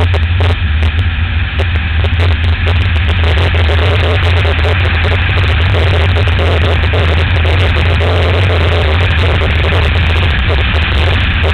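Motorcycle cruising at a steady speed: a loud, steady low drone from engine and wind, with road and wind rush over it, all unchanging through the ride.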